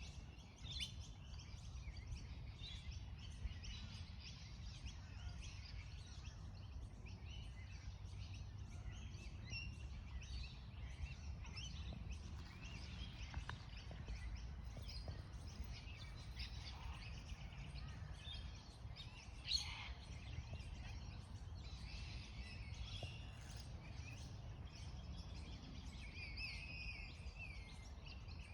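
Small birds chirping and twittering on and off over a steady low outdoor rumble, with one brief sharp tap about two-thirds of the way through.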